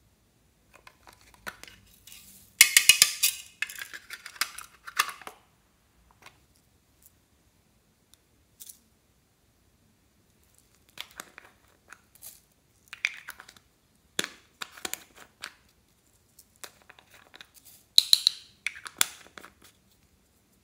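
Hands handling small plastic toys, giving bursts of crackling, rattling and clicking: a loud rattling crackle about three seconds in, scattered clicks and taps in the middle, and another crackling burst near the end.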